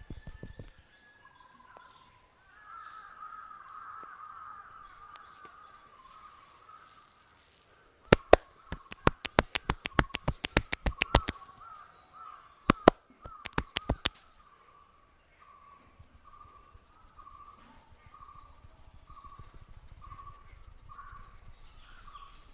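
A run of loud, sharp hand slaps in quick succession, about eight seconds in and lasting some six seconds with a short break: percussive massage strokes. A bird calls over and over behind them.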